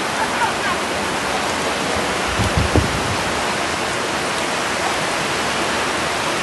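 Steady rush of fast-flowing floodwater, with a few dull low thumps about two and a half seconds in.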